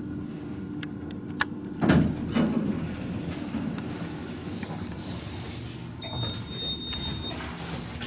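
Elevator doors of a Dover/Lagerquist traction elevator sliding open, with a loud low rumble about two seconds in as the door panels move. A high steady beep sounds for about a second near the end.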